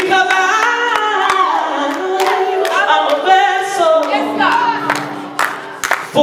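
A man singing a gospel line through a microphone, sliding and ornamenting the melody, with other voices singing along. A few sharp claps come near the end.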